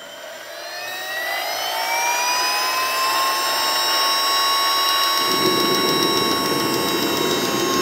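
Swiwin SW170B model turbine jet engine spooling up on its electric starter during an ignition sequence: a whine rising in pitch over the first two seconds, then holding steady. About five seconds in, a rough rushing noise joins it as the fuel pump starts feeding fuel for ignition.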